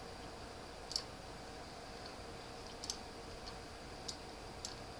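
Several faint computer-mouse clicks, scattered and irregular, the strongest about a second in, over a steady low background hum.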